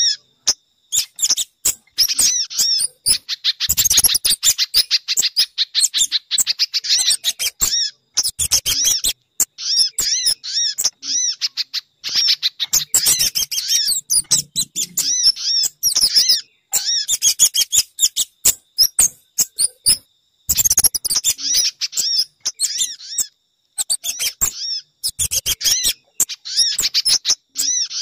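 Bird-lure call recording: bursts of rapid, repeated high chirps and trills, broken by short pauses.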